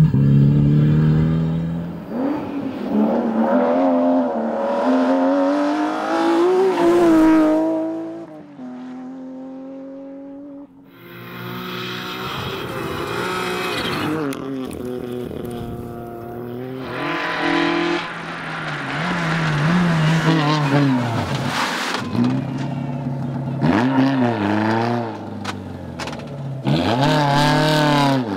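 Rally cars running hard on a special stage, one after another. Their engines rev high and drop sharply with each gearshift and corner as they pass. About a third of the way in, one car sounds quieter and farther off for a few seconds.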